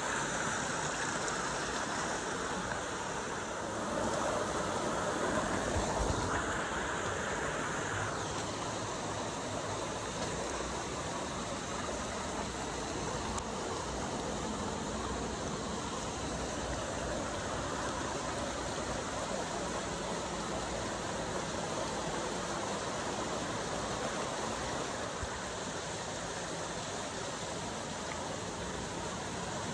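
Creek water rushing and splashing over rocks through a narrow rock canyon, a steady wash of water noise that swells slightly a few seconds in.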